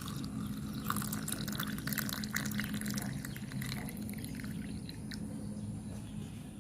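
Hot water being poured into a glass, splashing and trickling, thinning out after about three seconds, with a steady low hum underneath.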